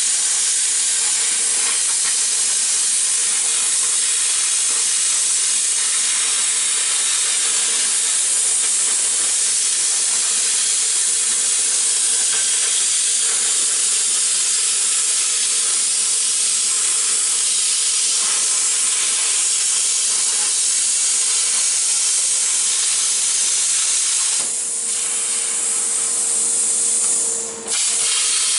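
Hand-held plasma cutter cutting 14-gauge sheet metal: a steady, loud hiss of the arc and air jet, with a steady tone underneath. The hiss cuts out for a moment near the end and then comes straight back.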